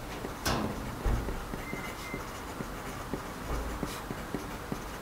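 A pen writing on paper: faint, irregular scratching and small ticks of the tip as words are written, with two louder brief scrapes, about half a second in and near the end.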